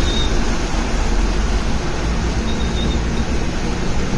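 Steady low rumble of a moving vehicle, with no sharp events.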